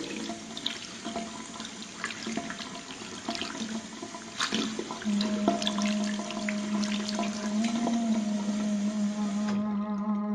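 Water running from a bathroom tap over hands being washed, with small splashes and clicks, stopping about a second before the end. About halfway in, a low held musical note comes in under it.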